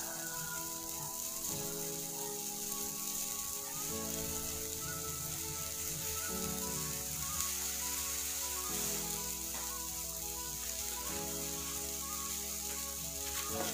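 Soy-and-corn-syrup sauce sizzling steadily as it simmers in a stainless steel pan, over background music of held chords that change every few seconds.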